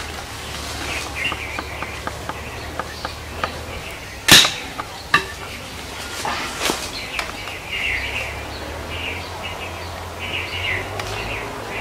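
Birds chirping in short calls, with a run of light ticks in the first few seconds and a sharp, loud crack about four seconds in, followed by a smaller crack about a second later.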